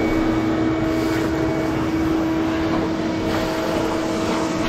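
Ridgid wet/dry shop vacuum running with a steady drone, its hose sucking debris out from between the exposed floor joists.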